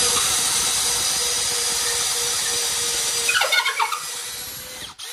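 Makita cordless impact driver boring a wood auger bit through a wooden post, its motor running steadily at full speed with a steady whine, then stopping just before the end. A short wavering squeal comes about three and a half seconds in as the bit cuts deep into the wood.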